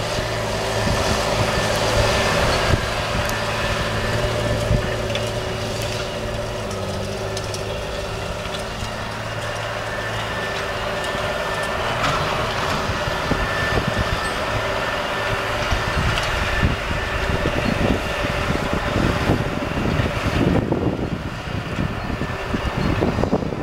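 John Deere 8530 tractor's six-cylinder diesel engine running steadily under load while pulling a harrow across the field, its pitch dipping slightly as it passes. In the last several seconds, wind buffets the microphone.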